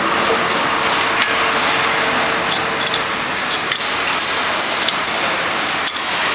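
Steel wrench clinking and clicking against the clamping nuts and steel plate of a blister-packing machine's Al-Al mould as they are tightened, a few separate metallic ticks over steady loud workshop noise.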